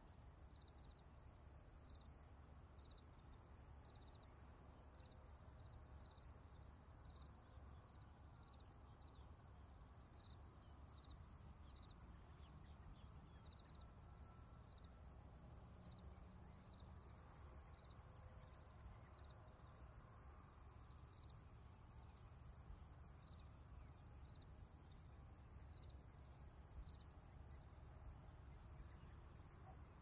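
Faint chorus of insects: a continuous high-pitched trilling with a regular chirp repeating a little more than once a second, over a low background rumble.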